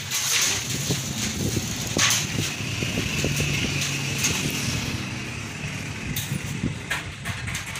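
A motor vehicle's engine running in the street just outside, a steady low rumble. There is a sharp knock about two seconds in, and a thin high whine for a few seconds in the middle.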